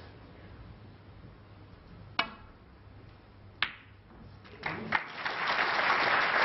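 Snooker shot: the cue tip strikes the cue ball about two seconds in, and about a second and a half later the cue ball clicks sharply into a red. A few knocks follow as the red drops into the corner pocket, and the audience breaks into applause.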